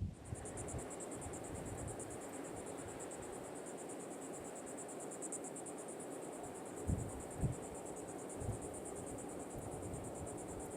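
Insects trilling: a steady, high-pitched, fast-pulsing drone over a low background noise, with two short low thumps about seven seconds in.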